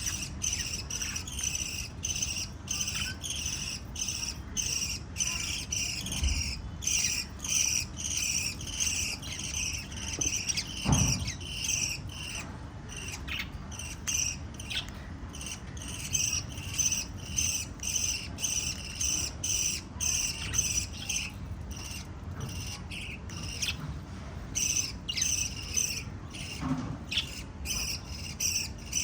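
High-pitched chirping repeated at an even, rapid rhythm throughout, with a dull thump about eleven seconds in.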